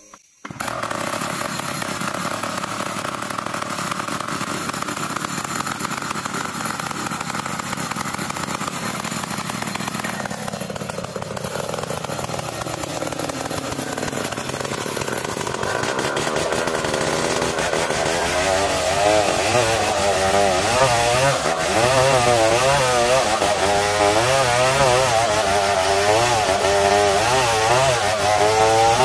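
Petrol chainsaw running continuously. From about halfway it is ripping lengthwise along a dense ulin (Borneo ironwood) plank, louder, its engine note wavering as it works under load.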